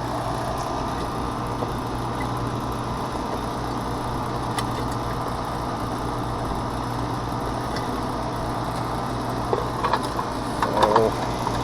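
Air-conditioning condensing unit running with a steady hum and low rumble, its compressor working on a system that is nearly empty of refrigerant.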